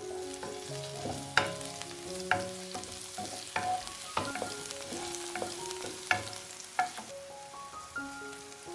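A wooden spatula stirs chicken pieces in a nonstick frying pan while the teriyaki sauce sizzles, with several sharp knocks of the spatula against the pan.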